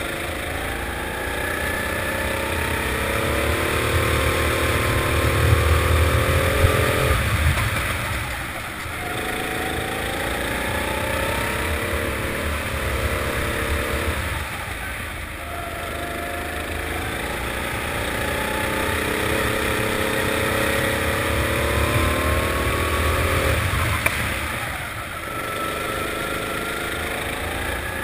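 Four-stroke indoor rental kart engine heard from on board, rising in pitch as it accelerates along the straights and dropping off sharply as the throttle is lifted for corners, three times over.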